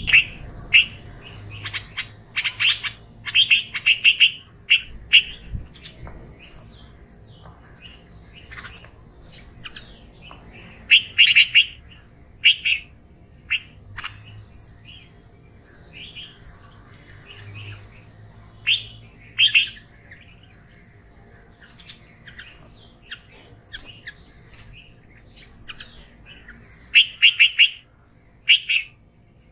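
Red-vented bulbuls calling while they feed, short sharp chirping notes in quick clusters of several, with gaps between the bursts.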